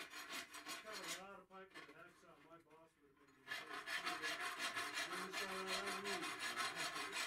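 Hand tool rasping back and forth on steel. The first few seconds are quieter and uneven, then about three and a half seconds in a loud, continuous scraping sets in and carries on.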